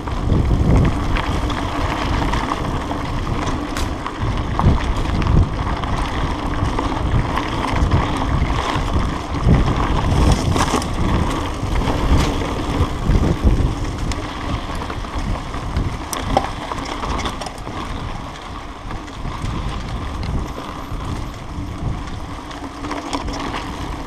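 Mountain bike riding fast over a dirt forest trail: continuous tyre rumble with the bike rattling and knocking over bumps, and wind buffeting the microphone.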